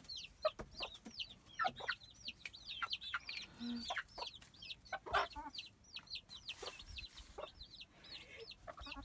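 A flock of chickens clucking during feeding, with a steady stream of short, high-pitched calls several times a second over lower, sharper clucks.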